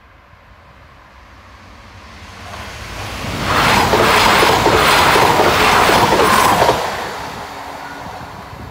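Two coupled West Midlands Railway Class 172 Turbostar diesel multiple units passing at speed through a level crossing. The sound rises as the train approaches and is loud for about three seconds, with a run of wheel clicks over the rail joints, then fades away.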